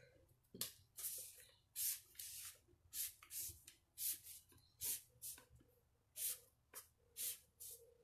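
Felt-tip marker drawing short lines on paper. About a dozen quick swishing strokes come roughly every half second, each a brief scratchy hiss of the tip across the sheet.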